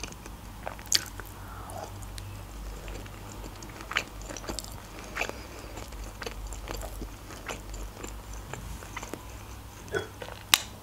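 Mouth sounds of chewing chicken pieces in a sweet-and-sour sauce: scattered wet smacks and clicks, a few of them louder, over a low steady hum.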